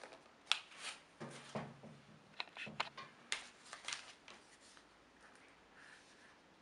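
Handling noise as a smartphone is lifted out of its plastic packaging tray on a glass table: a quick run of light clicks, taps and plastic rustles, dying away about four seconds in.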